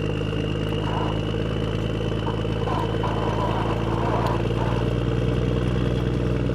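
An engine running steadily, growing slightly louder about halfway through, with faint voices in the background.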